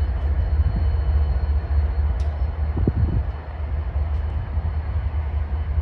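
BNSF diesel-electric locomotives running as they move slowly along the track, a steady low engine sound.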